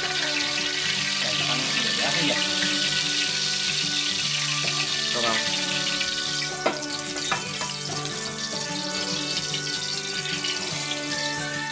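Cooking oil heating in a frying pan, with a steady sizzling hiss that eases off about halfway through, over background music. Two sharp clicks come a little past the middle.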